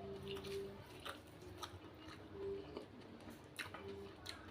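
A person chewing a mouthful of food, with irregular wet mouth clicks and smacks picked up close to the microphone.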